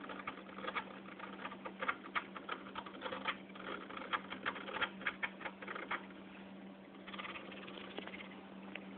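Dull blade of a Piranha Float magnetic glass cleaner dragged slowly across aquarium glass, crackling and clicking rapidly as it scrapes off encrusted algae spots. The clicking stops about six seconds in, leaving a steady low hum.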